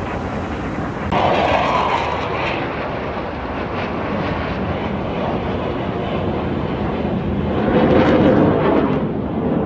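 A fixed-wing aircraft's engines passing, a loud rushing noise that jumps up about a second in and swells again near the end.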